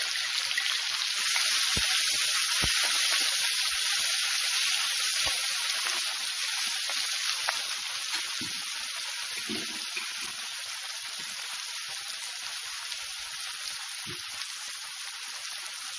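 Chopped onion sizzling in hot oil in a kadhai with crackled mustard and cumin seeds; the sizzle surges about a second in and then slowly dies down, with a few light clicks.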